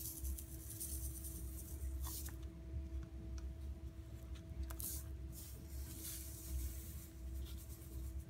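Dry white powder poured from one paper cup into another and pressed down with the fingers, with irregular hissing, scraping and rustling of the powder and the paper cups, and a few small clicks. A steady faint hum runs underneath.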